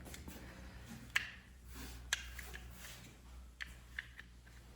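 A few light, sharp clicks and taps, spread a second or so apart, over a low steady hum in a quiet room.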